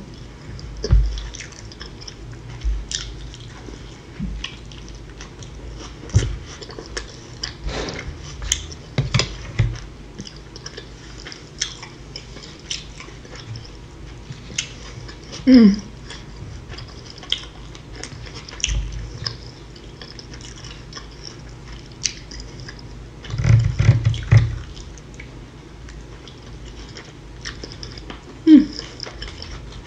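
Close-miked chewing and biting of a beef quesadilla and tortilla chips: scattered crunches and wet mouth sounds, with two short falling vocal sounds, one midway and one near the end.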